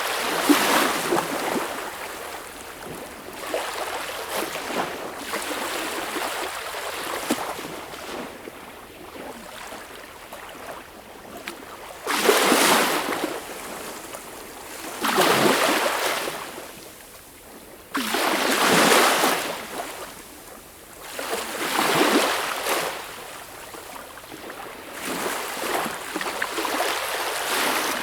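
Sea waves breaking and washing on shore, a steady noisy wash with a surge every few seconds, the strongest about halfway through and again near the end.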